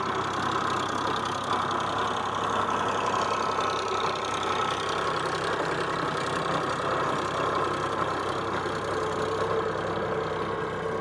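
Eicher tractor's diesel engine running steadily while pulling a rotavator through the soil.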